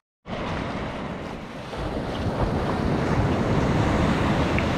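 Surf washing up a sandy beach, with wind buffeting the microphone. The noise swells about two seconds in.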